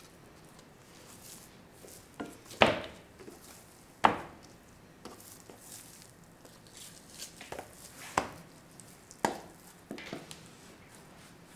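Knife chopping on a cutting board: separate, irregular strikes a second or more apart, a few much louder than the rest.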